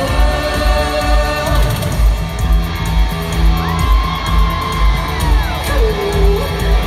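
Live new-wave band playing an instrumental passage with a steady pounding drum beat, heard from the crowd in an arena. About midway a long high note rises, holds and then slides down.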